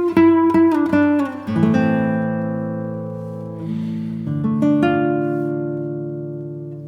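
Background music on acoustic guitar: quick plucked notes at first, then a few sustained chords left to ring and fade.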